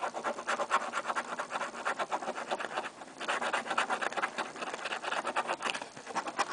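A coin scratching the coating off a paper scratch-off lottery ticket in rapid back-and-forth strokes, with a brief pause about three seconds in.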